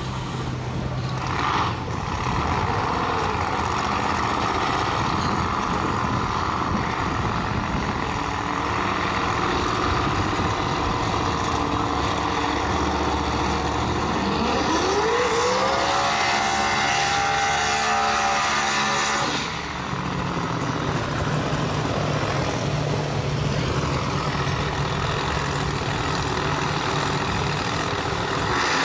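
Drag race car engines running steadily. About halfway through, one engine revs up in a rising climb, holds high for a few seconds and cuts off sharply.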